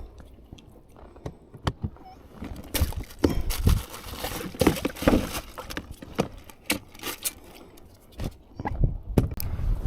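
A freshly landed mackerel flapping on a kayak or paddleboard deck, making irregular taps, knocks and a few heavier thumps, busiest a few seconds in.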